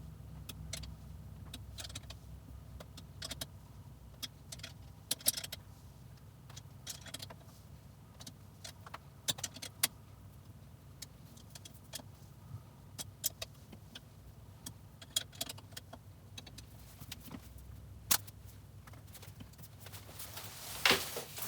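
Irregular metallic clicks and clinks of an Allen key turning and seating the bolts on an exercise bike's frame during assembly, a few sharper than the rest, over a steady low hum.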